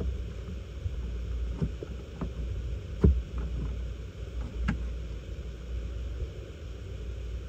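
Several scattered knocks and clunks of parts being handled while a heater core is worked out of a semi truck's dash, the loudest about three seconds in, over a steady low rumble.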